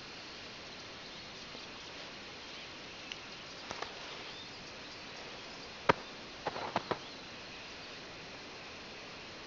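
Quiet forest ambience: a steady faint hiss, broken by a few sharp clicks, the loudest just before the six-second mark, followed by a quick run of about four more.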